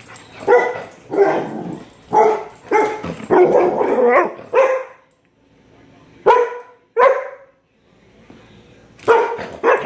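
A one-year-old Vizsla barking: a quick series of sharp barks about every half second, a pause a little after the middle broken by two single barks, then more barking near the end.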